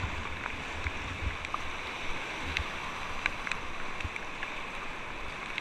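Steady rush of whitewater rapids heard from a kayak on the river, with scattered small splashes and ticks.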